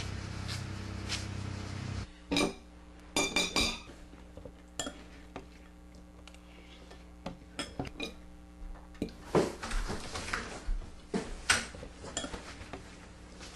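A steady low hum that cuts off about two seconds in, followed by scattered light clinks and knocks of hard objects, coming in small clusters.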